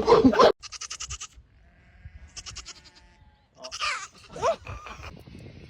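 An animal bleating, several short wavering calls and a couple of calls that slide up and down in pitch, after a loud voice-like sound cuts off half a second in.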